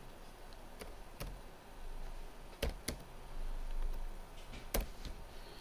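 About five sharp, separate keyboard keystrokes at uneven intervals, as a postcode is typed on a computer keyboard, over a low background hum.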